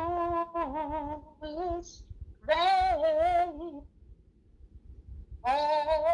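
A woman singing alone without accompaniment: long held notes with vibrato, in three phrases with short pauses between them.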